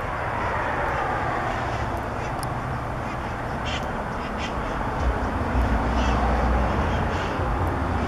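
Steady road-traffic noise with a vehicle passing, and a deeper rumble building from about five seconds in. A few short, harsh squawks from wild conures cut through it, about halfway through and again near six seconds.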